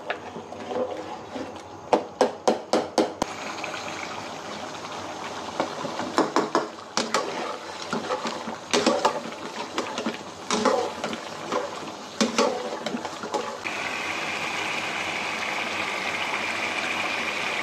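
Slotted metal spatula knocking and scraping against a stone-coated wok as mutton and tomato curry is stirred and mashed over high flame, with a quick run of about six knocks about two seconds in and scattered clacks after. From about fourteen seconds in, a steady sizzle as the curry bubbles hard on high heat during the bhuna, the frying-down stage.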